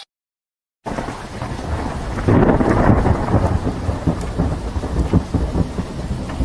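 Thunderstorm sound effect: heavy rain with a deep, crackling rumble of thunder. It starts about a second in and grows louder a little past two seconds in.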